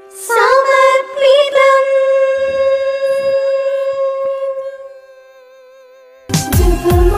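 A woman's voice singing unaccompanied, holding one long note that wavers slightly and then fades. About six seconds in, a song with bass and a steady beat starts.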